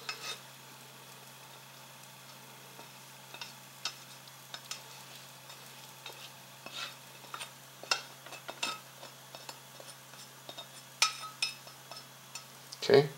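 Spatula scraping and tapping in a stainless-steel fry pan as scrambled eggs are scooped out onto plates: scattered short metal scrapes and clicks, with a louder knock near the end.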